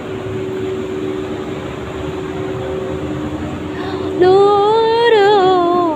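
Street traffic noise with a steady low hum. About four seconds in, a loud pitched tone starts and wavers up and down in pitch for nearly two seconds before stopping.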